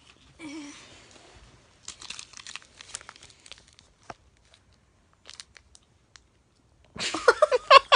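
Crinkling and rustling of snack packaging, with crisp clicks and crunches, over the first few seconds. Near the end, a sudden burst of loud, pulsing laughter.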